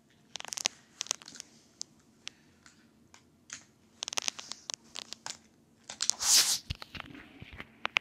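Handling noise as die-cast toy cars are picked up and moved on a hard shelf: scattered small clicks, knocks and scrapes, with a louder scraping rush about six seconds in.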